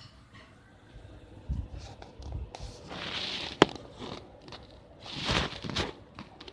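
Handling noise from a phone being moved and set in place: rustling and low bumps against the microphone, with two longer rustles and a single sharp click about three and a half seconds in.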